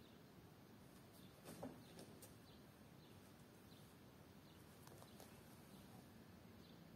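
Near silence: faint room tone, with a few soft knocks and some faint, short high chirps.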